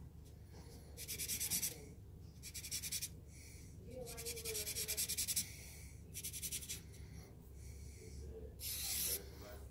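Artline 70 permanent marker's felt tip scratching on printer paper in five short bursts of quick back-and-forth strokes, hatching shading lines.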